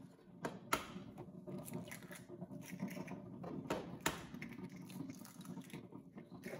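Oil sizzling and crackling in a small frying pan as eggs are fried, with a few sharp cracks of eggshells being broken over the pan.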